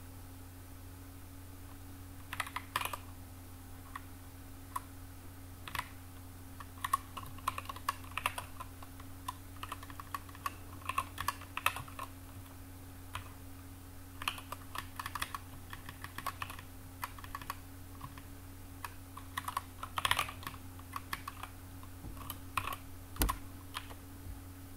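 Typing on a computer keyboard: irregular runs of keystrokes with short pauses, over a steady low hum, with one heavier knock near the end.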